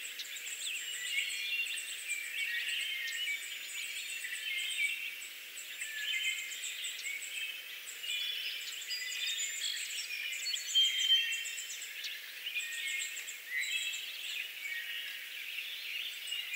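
A chorus of many songbirds chirping and singing at once, overlapping short calls with repeated high, rapid trills throughout.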